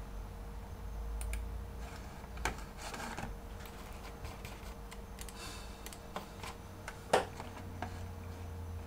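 A few scattered clicks and taps of someone working a computer's keyboard, the sharpest about seven seconds in, over a steady low electrical hum.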